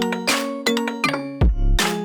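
Background music: an electronic song with a steady drum beat and melodic notes, with no singing at this point.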